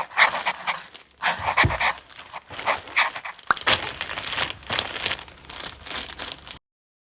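Packaging crinkling and rustling in repeated bursts as it is handled and opened, with a sharp click about halfway through; it cuts off abruptly near the end.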